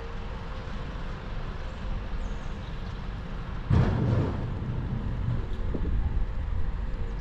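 Outdoor ambience: a steady low rumble that jumps suddenly louder about halfway through and stays louder.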